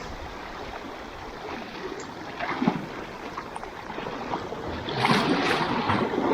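Sea waves washing and splashing against shoreline rocks, with a louder surge about five seconds in.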